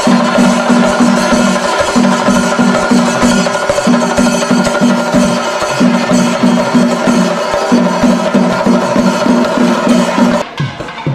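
Kerala temple percussion ensemble playing: chenda drums beat out quick repeated phrases of strokes, with clashing cymbals and a wind instrument holding steady notes over them. The music drops away sharply near the end.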